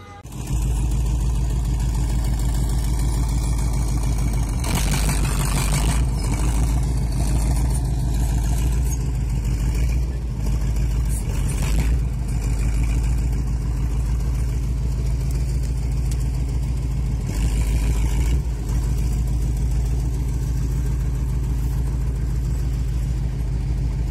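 Motor vehicle engine running steadily, a deep drone under rushing noise, with a few brief surges of louder rushing noise.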